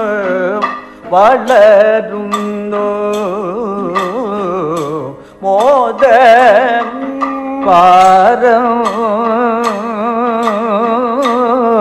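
Kathakali padam: a male voice singing long, heavily ornamented, wavering notes, with regular sharp percussion strokes from chenda, maddalam and the singer's hand gong. The voice breaks off briefly about a second in and again near five seconds.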